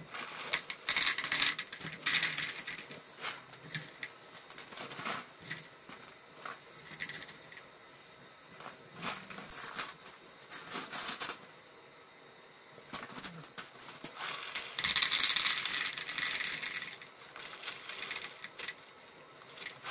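Centennial hop pellets poured from their bag into a plastic tub on a kitchen scale: crinkling of the bag and a rattling patter of pellets hitting the plastic, loudest about 15 seconds in.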